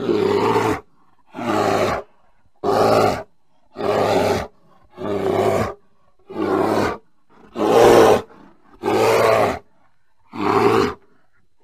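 A bear giving a series of nine loud, pitched calls, each under a second long, repeated evenly about every second and a quarter.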